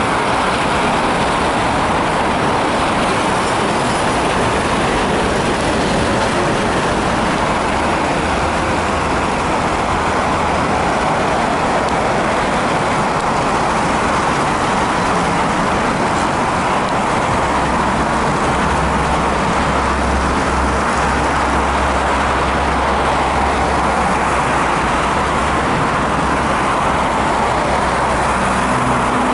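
Steady roar of road traffic on a busy multi-lane avenue: tyre and engine noise from a continuous stream of cars, buses and trolleybuses. A low engine drone joins in for the second half.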